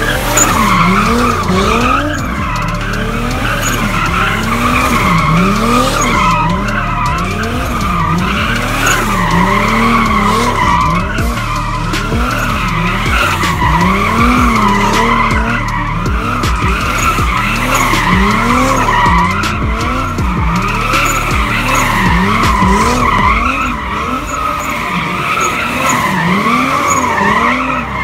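A car drifting: its tyres squeal without a break while the engine revs rise and fall over and over, about once a second, as the throttle is worked.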